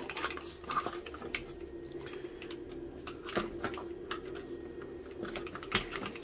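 Plastic housing of a Black & Decker angle grinder being handled and opened: a string of irregular clicks, taps and knocks, over a steady low hum.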